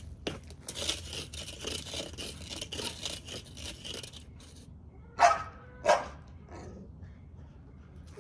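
A dog barks twice, about a second apart, around five seconds in. Before that comes a stretch of rustling, crackling noise.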